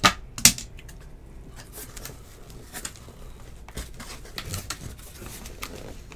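Two sharp clicks about half a second apart, followed by faint scattered clicks and taps.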